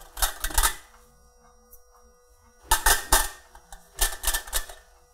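Olive oil spray bottle spritzing into a nonstick egg poacher's cups: three bursts of several quick sprays each, near the start, about three seconds in and about four seconds in.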